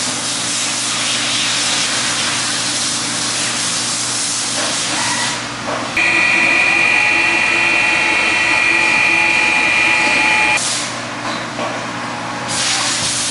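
Millport 618 surface grinder's spindle running, its 7-inch grinding wheel spinning at speed with a steady high whine that starts suddenly about six seconds in and cuts off abruptly some four seconds later. Before it and again near the end there is a steady hiss.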